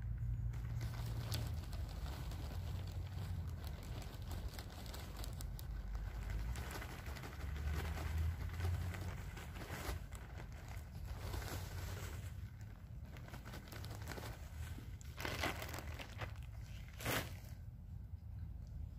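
A plastic potting-soil bag crinkling and rustling as soil is poured and shaken out of it, with a steady run of small crackles and a couple of louder crackles near the end.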